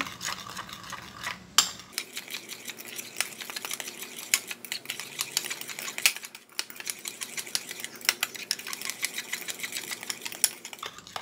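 Metal spoon stirring a thick matcha-latte mixture in a small bowl, the spoon clicking and scraping rapidly and unevenly against the bowl's sides. A few louder clinks stand out.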